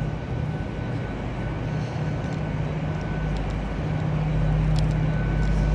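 Steady low drone of a train at a station, with a thin steady whine above it, growing a little louder about four seconds in.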